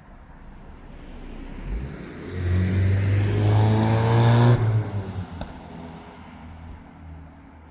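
A motor vehicle's engine accelerating close by. It builds over a couple of seconds to a loud peak, drops off sharply just under five seconds in, then fades away.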